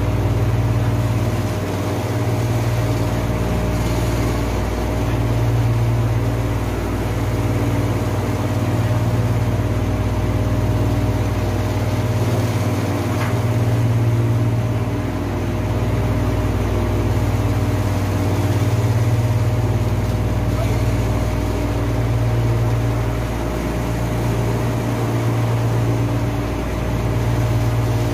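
Heavy machinery running steadily: a low hum with a few held tones that swells and fades every few seconds.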